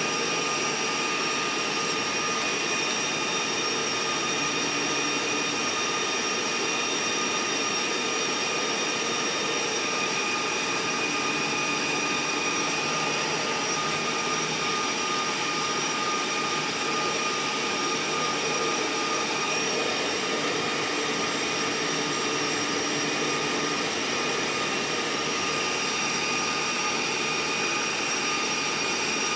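Steady rushing, whirring noise of a moving passenger train heard from inside a car, with a few steady high tones running through it.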